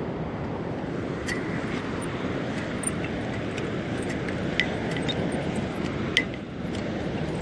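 Steady rushing of sea and wind over the water, with three sharp clicks that ring briefly: about a second in, past halfway, and near the end.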